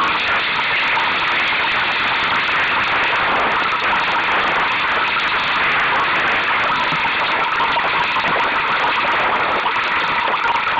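Steady rushing noise of wind on the microphone and water along the hull of a sailing dinghy under way in choppy conditions.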